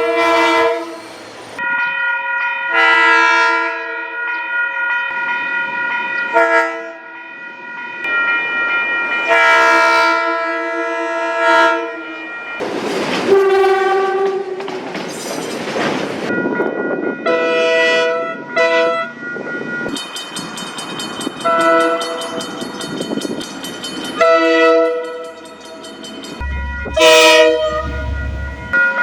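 Train air horns sounding a series of blasts, short and long, each a chord of several notes held together, over the rushing noise of a train running on the rails.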